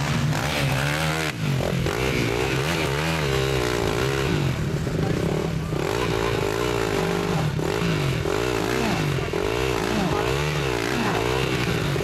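Enduro motorcycle engine blipped and revved over and over, its pitch rising and falling every second or so, as the bike is worked up and over a pile of logs.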